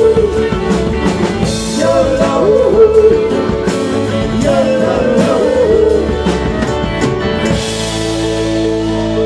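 Live rock band playing: an electric guitar's lead line of bent, wavering notes over bass and drums. About seven and a half seconds in, the band settles on a held chord with a cymbal wash.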